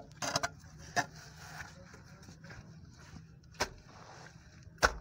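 A digging tool working sludge, leaves and roots at the bottom of a manhole: scraping with sharp knocks at uneven intervals, the loudest just before the end.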